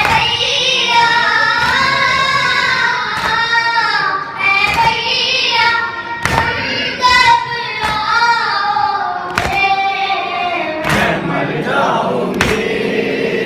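Boys' voices chanting an Urdu noha (Shia lament) together into microphones, with a heavy thump about every second and a half keeping the beat, the chest-beating of matam.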